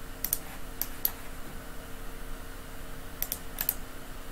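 Computer mouse and keyboard clicks: a few short, sharp clicks, mostly in quick pairs, near the start, about a second in and again about three and a half seconds in. A faint steady hum runs underneath.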